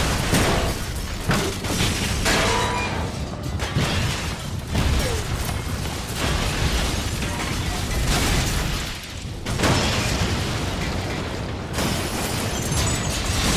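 Film action sound effects of a heavy crane truck smashing through a building: a continuous din of crashing, breaking glass and falling debris, with repeated heavy impacts.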